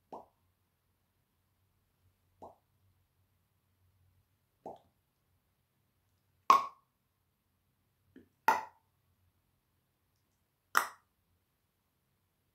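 A person making popping sounds with the mouth, one about every two seconds: three soft pops, then three much louder, sharper ones.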